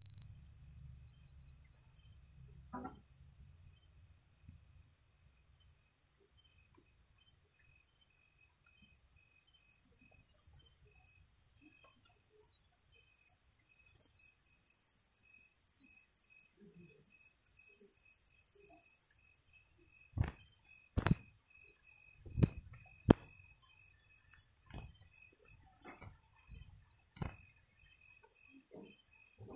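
Night insects chirring in one steady, unbroken high-pitched trill, with a fainter pulsing call beneath it. A few faint sharp clicks come in the second half.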